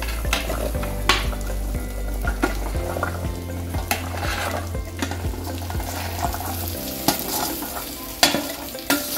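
Chopped taro stems tipped from a steel bowl into a pot of hot fried spice paste, sizzling, while a perforated steel skimmer scrapes them off and clinks against the bowl and pot several times.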